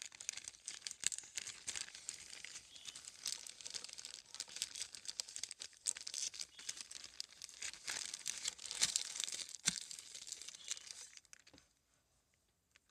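Paper and sticky tape being handled, with irregular crinkling and rustling that stops about eleven seconds in.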